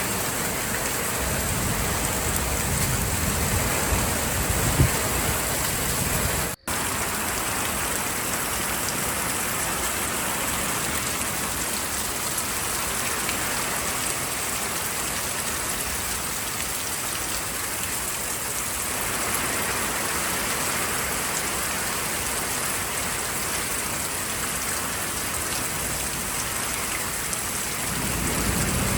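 Heavy rain falling steadily in a storm, a constant hiss with one sharp tap about five seconds in and a sudden split-second break just after.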